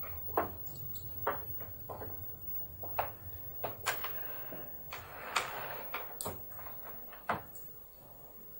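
A series of irregular knocks and clicks, about ten of them, over a low steady hum that fades near the end.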